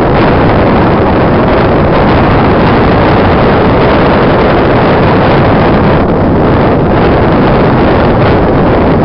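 Loud, steady wind buffeting the microphone, with the surf of breaking waves underneath.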